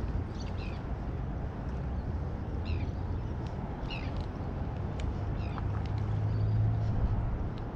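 Wind rumbling on the microphone, with a bird giving short, high, falling chirped calls several times.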